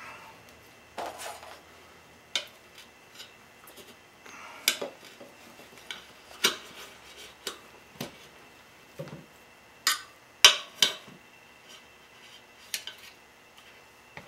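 Metal tire irons clinking and scraping against a spoked motorcycle wheel's rim as the second tire bead is levered on: irregular sharp metallic clinks, one or two a second, with a sharper clank about two-thirds of the way through.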